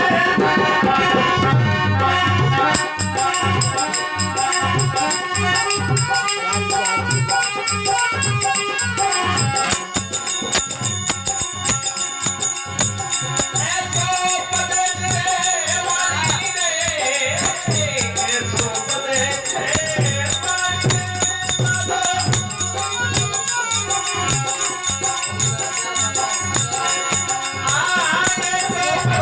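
Folk devotional music in an instrumental stretch: a rattling percussion instrument keeps a fast, steady beat over regular drum strokes and a melody instrument.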